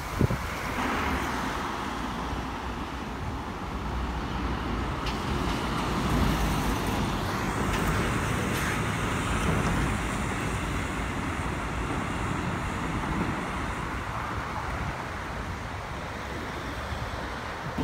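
Articulated lorry with a curtainside trailer driving past close by, its diesel engine and tyres getting louder from about six to ten seconds in, then easing off as it pulls away, over steady road traffic noise.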